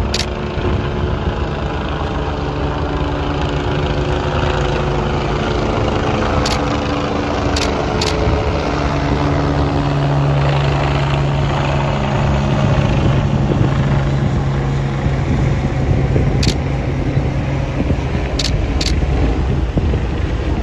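Qiantang River tidal bore breaking as it sweeps upriver: a loud, continuous rushing noise of churning water, with a low hum underneath and a few faint clicks.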